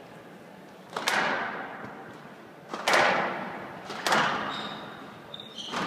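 Squash ball struck hard in a rally, four loud smacks of racket and wall about a second or two apart, each echoing through a large hall.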